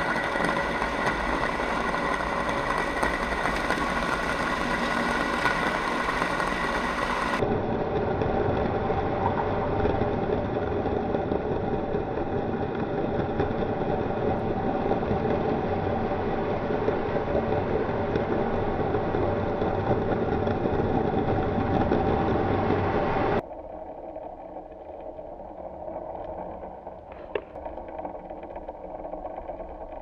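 Steady mechanical motor hum with a few steady tones running through it. It changes character abruptly about seven seconds in and drops noticeably quieter about 23 seconds in, with a single faint click near the end.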